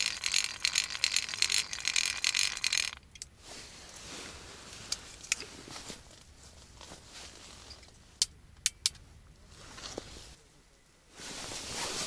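Small ice-fishing line reel clicking rapidly as line runs off it, lowering a loaded bait feeder through the ice hole; the clicking stops abruptly about three seconds in. A few seconds later come three sharp, separate clicks.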